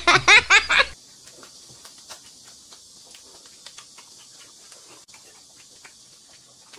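A burst of laughing for about the first second. After it come faint crinkles and clicks of a small plastic snack wrapper being torn open, with small eating noises, over a steady hiss.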